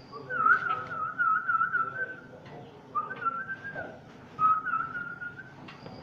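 Whistling: three warbling, trilled whistled phrases, the first and longest lasting about two seconds, then two shorter ones about a second apart.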